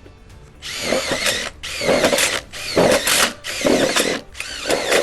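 Power drill driving screws into steel C-section frame pieces: about five short runs, each with a rising and falling whine as the screw bites and seats.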